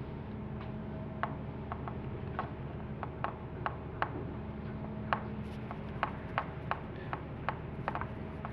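An irregular series of light mechanical clicks, about two a second, over a steady low machine hum.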